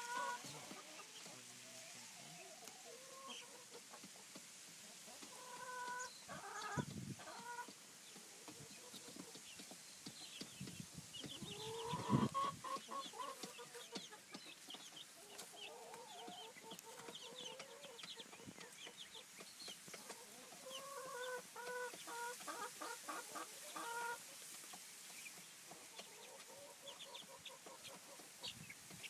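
Chickens clucking in several bursts of short, repeated calls, with faint high chirps in between. A couple of dull knocks sound about a quarter and about two-fifths of the way in.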